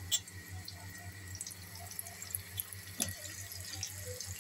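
Shami kababs shallow-frying in hot oil in a pan: a steady sizzle with scattered fine crackles, and two sharp clicks, one just after the start and another about three seconds in.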